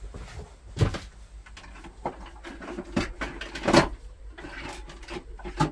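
Knocks and clatter of tools and storage being handled while rummaging at a workshop tool wall: a few sharp knocks, the loudest about two-thirds of the way in.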